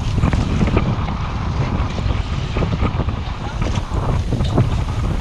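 Wind buffeting the microphone in a heavy, uneven low rumble, with scattered short knocks.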